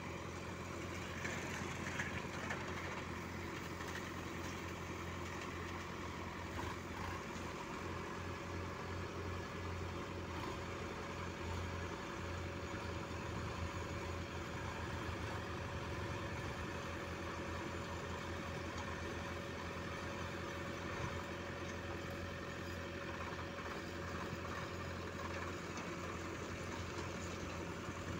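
Sonalika farm tractor's diesel engine running steadily as it drives slowly over mud, pulling an empty trailer.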